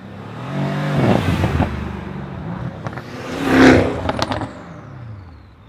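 Modified cars driving past and revving hard, one pass after another, the loudest about three and a half seconds in with a few sharp cracks right after it, then the engine note falling away.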